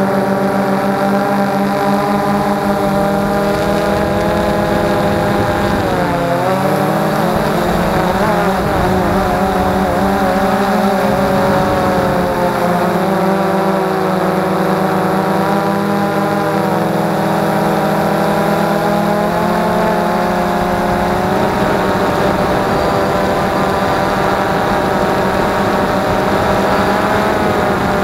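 DJI Phantom 2 quadcopter's four electric motors and propellers whining loudly and steadily, heard close up from the camera mounted on the drone. Their pitch dips and wobbles a few times as the motors change speed, about six seconds in, again around twelve seconds, and near the end as it comes down.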